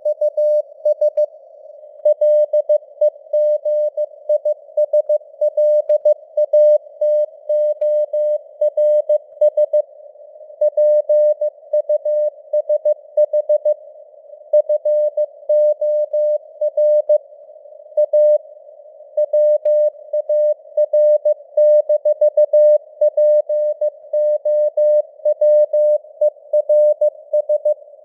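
Morse code (CW) sent at 15 words per minute: a single mid-pitched beep keyed on and off in dots and dashes, over a steady hiss of simulated radio noise, with short pauses between words.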